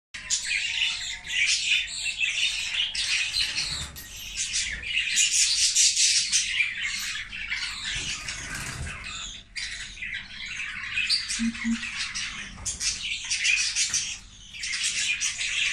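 Several budgerigars squawking and chattering continuously in shrill, overlapping calls, the harsh squabbling of birds fighting over food.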